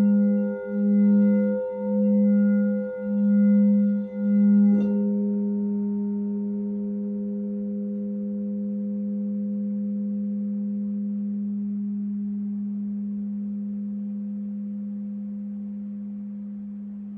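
White crystal singing bowl played by rubbing a mallet around its rim: a steady low hum with overtones, its loudness pulsing a little more than once a second. About five seconds in there is a light click as the mallet leaves the bowl, and the tone rings on by itself, slowly fading.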